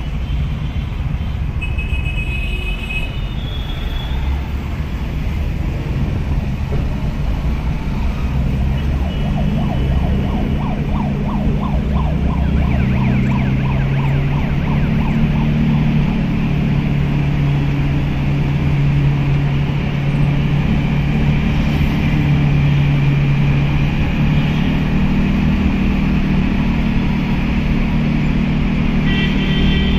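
Car engine hum and road noise heard from inside a taxi's cabin, growing louder as the car picks up speed in traffic. Short horn beeps from surrounding vehicles sound about two seconds in and again near the end.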